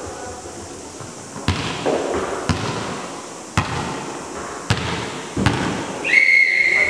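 A volleyball being struck five times about a second apart, sharp smacks echoing around a large gym hall, then a referee's whistle blown once for under a second near the end.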